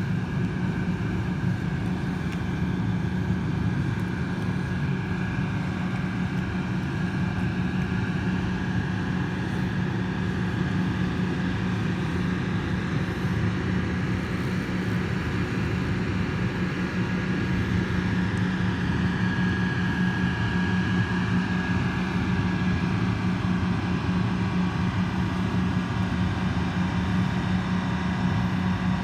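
A towboat's diesel engines droning steadily as it pushes a tow of barges, a low even hum with a faint higher whine over it.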